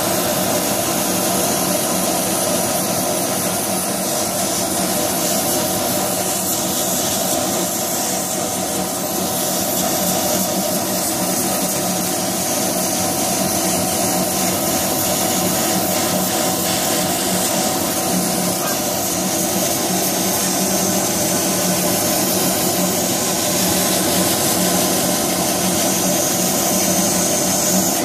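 Laser cutter running as it cuts a lace pattern in paper: a steady rushing of air, with an even hum underneath.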